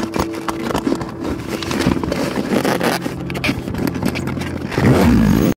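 The zipper of a fishing pack being pulled along its teeth, with gear shifting and scraping inside the bag, heard as a rapid run of clicks and scrapes. It is loudest just before it cuts off abruptly.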